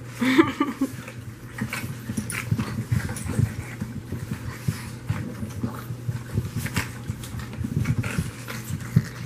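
Seven-week-old French Bulldog puppies tussling and tugging at plush toys, with quick grunts, breathing and scuffling on the blanket. There is one short pitched puppy sound about half a second in.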